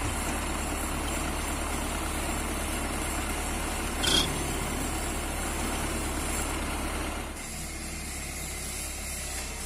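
Heavy diesel engine idling steadily, with one short, sharp high-pitched metallic sound about four seconds in. The sound gets a little quieter over the last two seconds.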